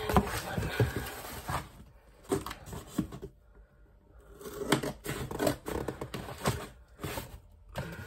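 Corrugated cardboard box being handled and turned over: irregular rustling, scraping and light knocks of cardboard, with a brief quieter pause a little past three seconds in.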